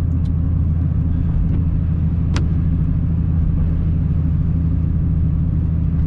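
Steady low rumble of engine and tyre noise inside the cab of a vehicle driving along a road, with one short sharp click a little over two seconds in.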